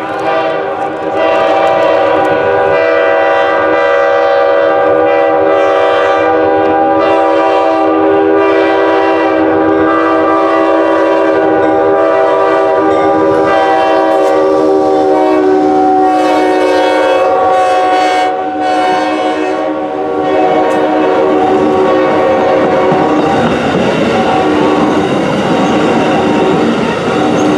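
Amtrak GE Genesis diesel locomotive passing close by with its air horn held in a long, loud chord for more than twenty seconds, with a few brief dips. The horn is sounded at length as a warning to a crowd of pedestrians on the platform. Near the end the horn stops and the stainless-steel coaches roll by with clickety-clack from the wheels.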